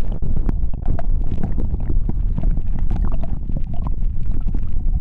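Low, rumbling noise with many small crackles on an FPV drone's onboard camera microphone, with no motor whine: wind and handling noise on the mic of a drone lying on the ground after a crash.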